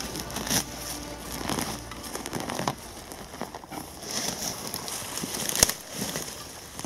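Gloved hands scraping and pulling at soil, roots and dry leaves around a buried object, giving an uneven crackling and rustling with scattered small clicks. A single sharp snap or knock about five and a half seconds in is the loudest sound.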